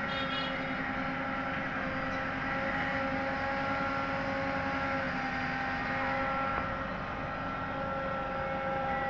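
JCB 3DX backhoe loader's diesel engine running steadily under load, with a steady whine over the rumble, as the backhoe arm digs soil.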